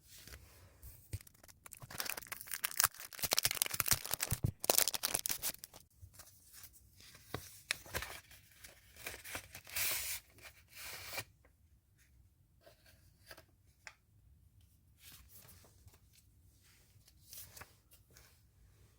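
Packaging being torn open by hand: a run of dense ripping strokes that is loudest a couple of seconds in, then shorter rips up to about the middle, after which only faint handling sounds remain.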